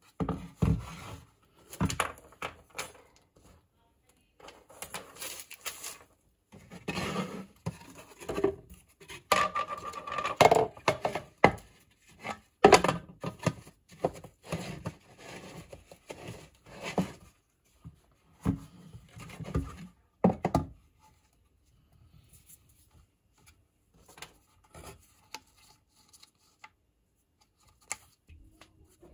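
Hard plastic parts of a cyclone dust collector kit and a plastic bucket lid being handled and fitted together on a wooden workbench: irregular knocks, clicks and rubbing scrapes. They are busiest through the first twenty seconds, then sparse and quieter.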